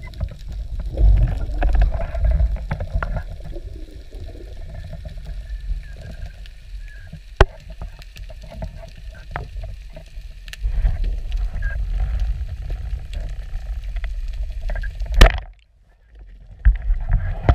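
Muffled low rumble of water moving past a camera in an underwater housing as the diver swims, with scattered sharp clicks. A loud knock near the end is followed by about a second of near silence.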